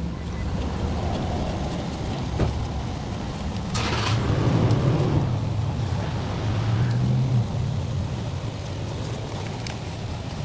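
A shop towel rubbing and snagging across the freshly wire-brushed aluminium gasket mating surface of the cylinder head as it is wiped down, with a brief louder scrape about four seconds in, over a steady low hum.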